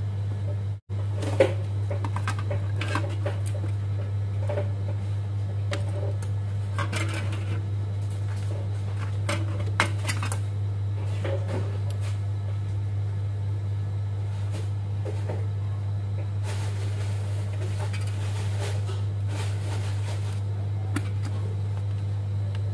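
A steady low electrical hum with scattered light clicks and taps as a soldering iron tip and wires are worked against an LED circuit board.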